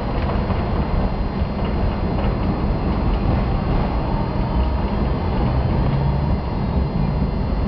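Hong Kong double-decker tram running along its tracks, heard on board: a steady low rumble with the rattle of the car body and the clatter of steel wheels on the rails.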